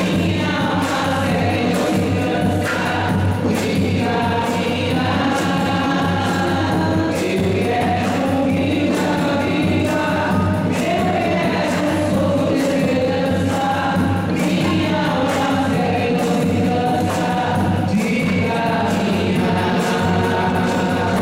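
Choir singing a hymn with a steady percussion beat.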